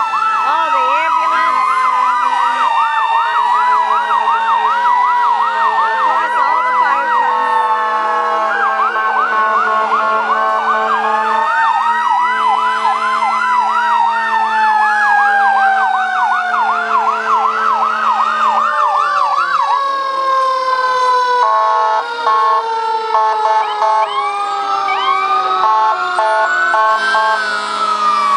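Several fire truck sirens sounding together: slow rising and falling wails overlap a fast yelp through much of the first two thirds. Through the second half one siren's pitch slides slowly down, and near the end a stepped, pulsing tone takes over from the yelp.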